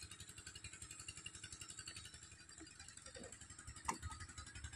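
Faint, steady putter of a distant engine, with one sharp click about four seconds in.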